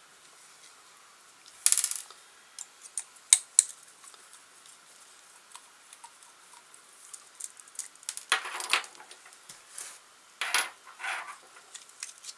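Small metal parts clicking and clattering: an Allen key and the motor mount screws being worked as an RC crawler's motor is unscrewed and freed. There are a few sharp ticks early on, then longer rattling bursts in the second half.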